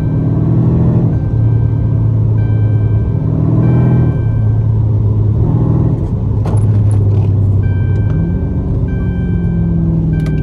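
Dodge Charger's swapped-in 392 (6.4 L) Hemi V8 running under way, heard from inside the cabin, its note rising and falling. Over it a dashboard warning chime dings in repeated spells, with a pause of a couple of seconds in the middle. The chime is set off because the aftermarket seats are not wired to the car's harness.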